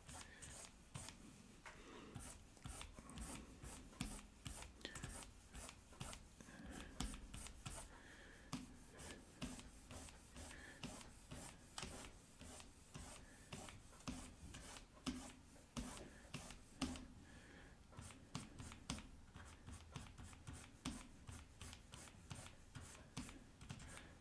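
Faint scratching of a stylus pen on a drawing tablet: many short, quick strokes repeated a few times a second, as straight speed lines are drawn freehand.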